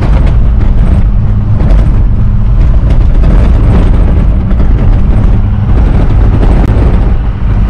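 Inside the cab of a large truck driving off-road on a sandy track: steady engine and road rumble, with scattered knocks and rattles as it jolts over the rough ground.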